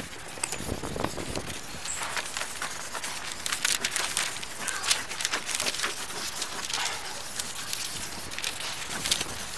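Dense, irregular crackling and rustling made of many small clicks and scrapes.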